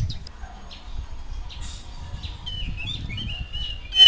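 Oriental magpie-robin singing softly, with short quiet chirps and twitters, then breaking into loud, fast whistled song phrases just before the end.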